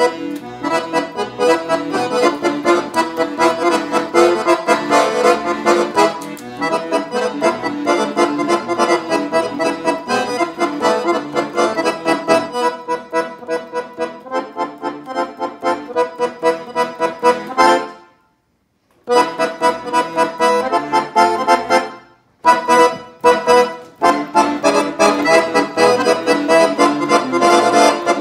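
Piano accordion playing a fast Thracian rachenitsa, a Bulgarian dance tune in seven-beat time, with a quick steady pulse. About two-thirds through the music stops for about a second, then breaks off again briefly a few seconds later.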